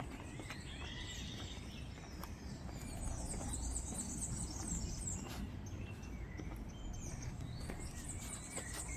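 Many songbirds chirping and calling at once, quick overlapping high chirps and short sweeping notes, over a steady low background rumble.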